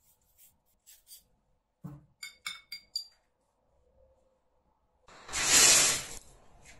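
A wooden stick clinks lightly against a small ceramic bowl, a quick run of short ringing clinks, while magnesium powder is stirred into nitrocellulose cotton. About five seconds in, a loud whoosh lasting over a second as a pile of the nitrocellulose and magnesium mixture flares up.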